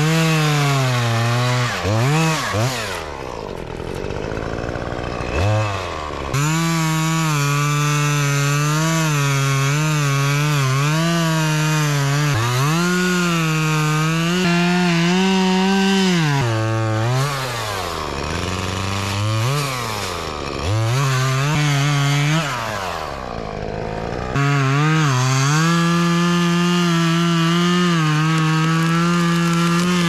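Stihl two-stroke chainsaw cutting through poplar limbs, held at full throttle for long stretches and dropping off toward idle and revving back up several times between cuts.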